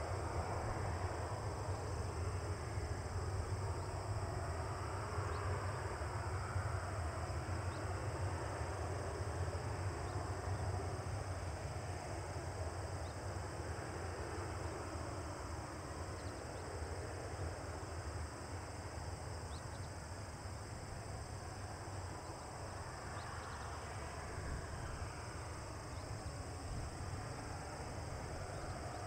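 Distant Boeing 737-800's CFM56 engines at idle thrust while taxiing: a steady low rumble and rushing whine that eases off slightly toward the end. A steady high insect chorus sits above it.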